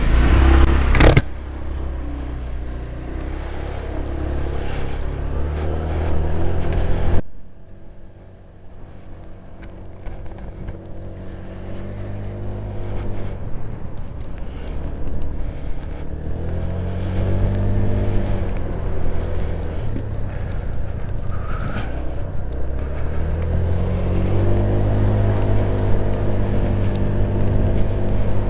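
Honda PCX125 scooter's single-cylinder engine heard from inside a full-face helmet, mixed with wind rush. About seven seconds in the sound drops sharply. After that the engine note rises and falls three times as the scooter speeds up and slows down.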